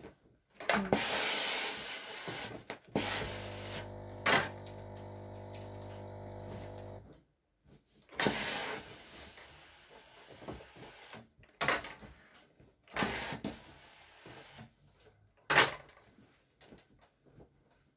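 Steam-generator iron in use: it hisses in several bursts of steam, and from about three to seven seconds it gives a steady electric buzzing hum. There are a few sharp knocks as the iron is handled.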